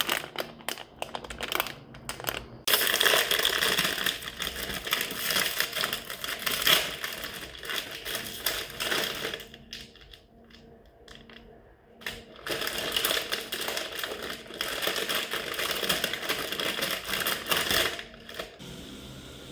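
Plastic food packaging crinkling and crackling as it is handled and opened, in two long stretches with a quieter pause between, after a few separate clicks at the start.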